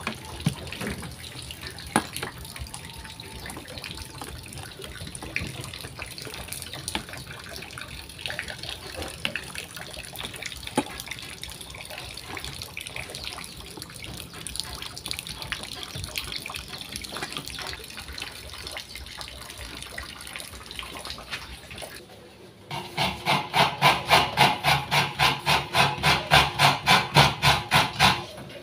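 Sticky rice-flour dough being kneaded by hand in a steel bowl: faint wet squishing with small clicks. After a sudden break, a coconut is scraped by hand over a steel bowl, a louder, fast, even rasping at about three to four strokes a second.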